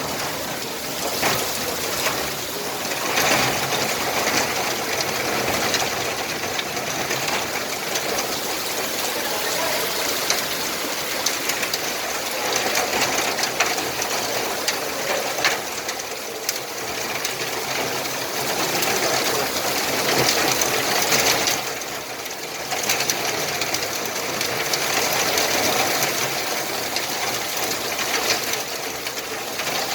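Rain falling steadily: a dense hiss filled with the patter of many drops, easing briefly a little past two-thirds of the way through.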